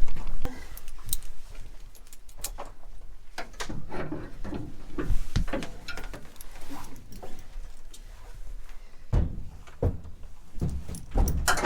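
Irregular knocks and clatter, with a few heavier thuds near the end, as a horse is unloaded from a horse trailer: hooves on the trailer floor and ramp, and the trailer's fittings knocking.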